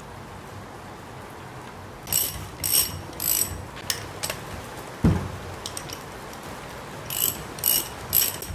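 Socket ratchet wrench tightening the side-cover bolts of a tractor hydraulic pump, clicking in short bursts of strokes from about two seconds in, with a single loud knock about five seconds in.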